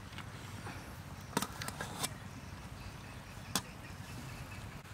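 A metal spatula clinking a few times against a steel wok and serving tray while braised food is lifted across: a handful of short sharp clicks, the clearest about a second and a half in and again near three and a half seconds, over a low steady background rumble.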